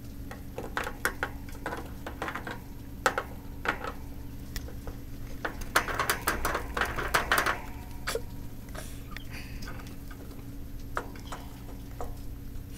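Hamster scrambling in a wire cage and wheel: irregular clicks and rattles of claws on metal wire and bedding, busiest about six to seven and a half seconds in, over a steady low hum.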